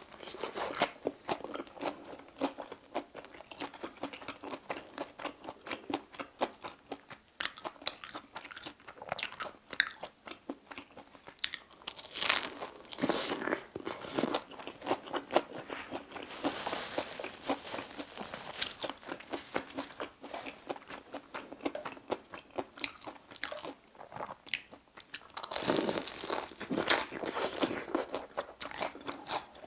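Crunchy bites into a fried, sugar-coated Korean corn dog with a sausage filling, and chewing, picked up close by a clip-on microphone. The louder crunch clusters come about twelve seconds in, around seventeen seconds and near the end.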